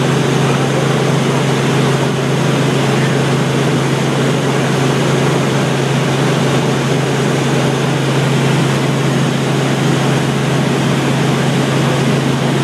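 Helicopter engine and rotor heard from inside the cabin in level flight: a loud, steady low hum over a broad rushing noise that holds constant throughout.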